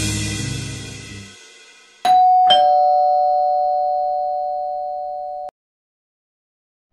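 Background music fades out, then a doorbell chimes a two-note ding-dong, the first note higher and the second lower, half a second apart. The chime rings on for about three seconds and cuts off abruptly.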